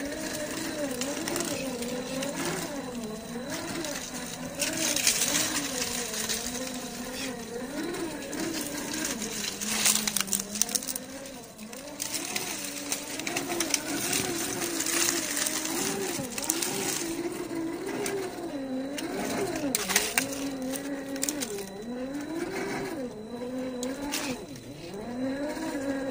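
Brushed 550 electric motor and gear drive of an MST CFX-W 1/10 RC rock crawler whining, the pitch rising and falling with the throttle as it crawls over rock, with scattered clicks and scrapes of tyres and chassis on stone.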